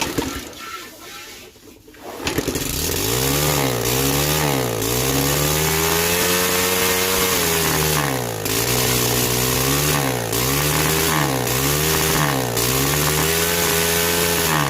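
Motorcycle engine starting about two seconds in, then being revved: the revs swing up and down half a dozen times, with one longer high hold in the middle, and fall away near the end.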